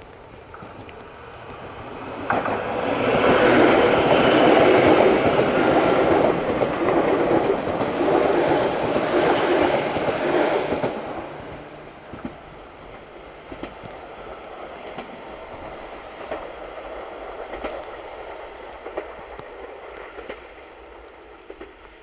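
Izukyu 8000 series electric train passing. It rises about two seconds in, is loud for about nine seconds, then fades away as the train moves off.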